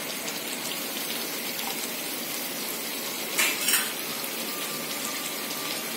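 Steady hiss of stovetop cooking as a steel pot of spiced water heats toward the boil, with a short clatter of utensils about three and a half seconds in.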